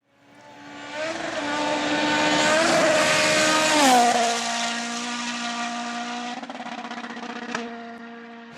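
Rally car engine at high revs approaching, shifting pitch a couple of times, then passing about four seconds in as its pitch drops, and fading away with a fluttering note and a short crack near the end.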